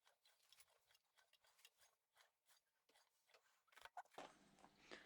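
Near silence: room tone with a few faint small clicks, a little louder near the end.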